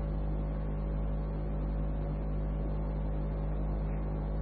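Steady low hum and hiss of an old, narrow-band tape recording, with a deep rumble and a few constant tones underneath.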